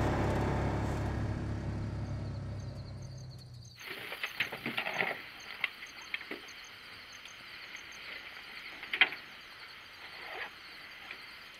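Off-road vehicle engine running as a low, steady rumble that fades and then cuts off about four seconds in. After that come scattered clicks and knocks of hunting gear being unloaded and handled, the loudest knock about nine seconds in, over a faint steady high-pitched drone.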